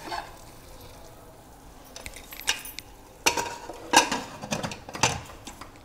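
Metal lid of a pressure cooker being fitted and closed: a few faint scrapes, then a cluster of sharp metal clanks and scrapes with a brief ring about three to five seconds in.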